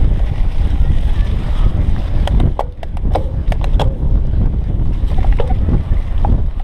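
Wind buffeting a GoPro Hero 3 action camera's microphone and a steady rumble from a cyclocross bike rolling fast over rough grass and dirt. A cluster of sharp clicks and rattles comes about halfway through.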